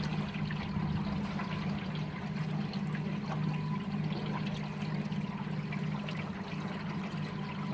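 Boat motor running steadily at trolling speed, a constant low hum, with water trickling and splashing along the hull.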